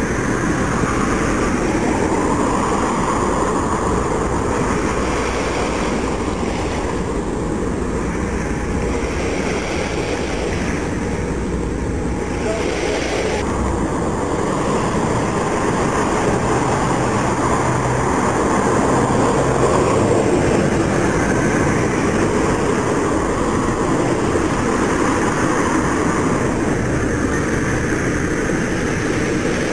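Diesel engines of an L-CAT landing catamaran running with a steady drone as the craft moves across the harbour.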